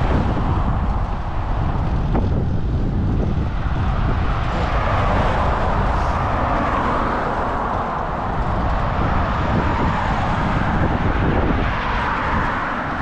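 Wind rushing and buffeting over the microphone during a fixed-gear bicycle ride, over a steady rush of road noise.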